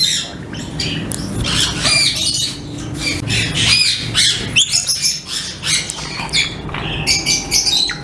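Many caged parrots squawking and chirping together, a dense run of short high calls that rise and fall in quick succession.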